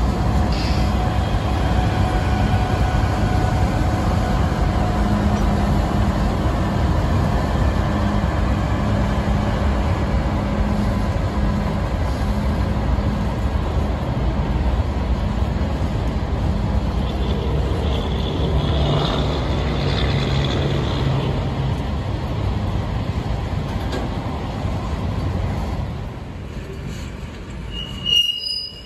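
Union Pacific diesel-electric freight locomotive passing with its engine running, followed by autorack freight cars rolling by with a steady rumble of wheels on rail. High wheel squeal rises briefly about two-thirds through and again just before the end.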